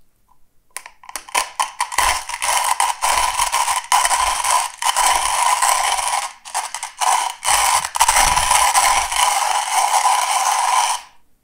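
Comandante C40 MK3 hand coffee grinder with Nitro Blade conical burrs being cranked through whole coffee beans: the crunch and crackle of beans breaking between the burrs. It starts as scattered cracks about a second in, becomes a dense, steady grinding with a few brief pauses, and stops just before the end.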